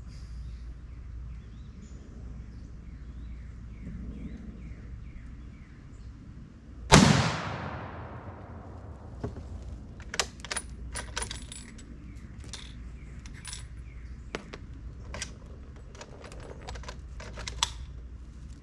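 A single shot from a Remington 03A3 bolt-action rifle in .30-06 about seven seconds in, dying away in a long echo. After it, a string of sharp metallic clicks and clinks, some ringing, as the bolt is worked.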